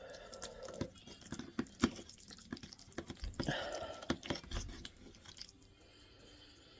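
A person chewing creamy chicken pasta with mushrooms close to the microphone: wet mouth sounds and many small clicks, growing quieter after about five seconds.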